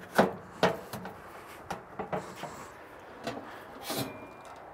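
Metal clunks and knocks from a steel pizza oven insert as its lid is tugged and rattled, held shut by a metal shipping band: about six irregular knocks, some with a short metallic ring.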